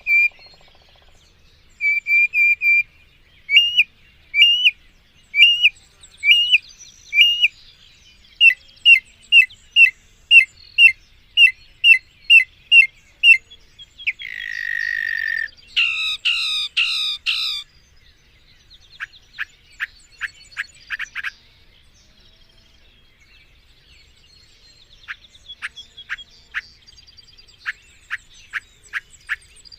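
Mockingbird singing a long medley of varied phrases, each repeated several times before it switches. A trill and strings of quick sharp notes come first, then a harsh buzzy note about halfway through, three loud down-slurred notes, and rapid series of short notes toward the end.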